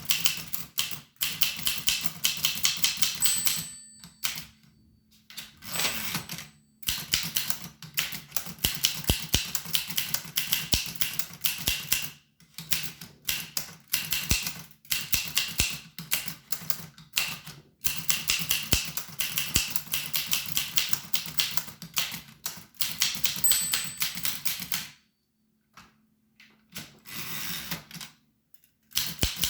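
An 1895 Williams No. 1 typewriter being typed on: quick runs of key strikes, several a second, broken by short pauses, with a longer lull near the end.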